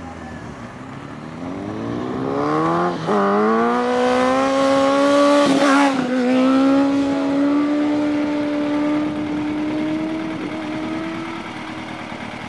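Sport motorcycle engine accelerating hard while the bike is up on a wheelie. The note climbs in pitch, with a gear change about three seconds in, and is loudest as the bike passes close around the middle. After that it holds a long, steady note that fades as the bike pulls away.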